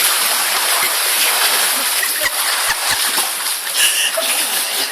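Steady splashing of water from swimmers churning through it, with a few dull low thumps partway through.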